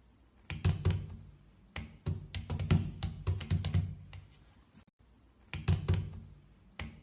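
A series of irregular knocks and taps, each a sharp click with a dull thump, coming in several clusters with short quiet gaps between.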